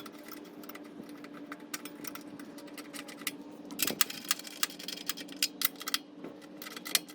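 Rapid metallic clicking of a ratchet wrench tightening the battery hold-down bracket bolt, in quick runs with short pauses, over a steady low hum.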